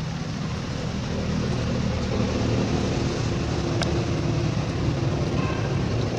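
A steady engine hum with faint pitched lines, growing a little louder over the first couple of seconds and then holding.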